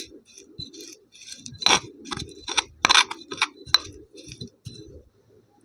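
A brittle, powdery block being crushed: a quick irregular series of sharp crackling crunches, the loudest in the middle, dying out near the end.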